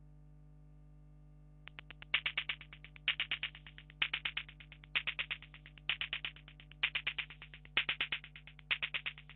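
Electronic rhythm from a Korg Kaossilator synthesizer, starting about two seconds in: short groups of rapid, bright ticking pulses repeating about once a second. Before it there is only a faint steady hum.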